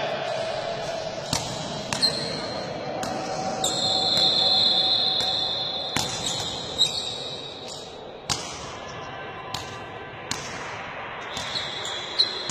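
Sharp thumps at irregular intervals, about nine in all, echoing in a large hall, with a high steady squeak-like tone held for a couple of seconds in the middle and again near the end.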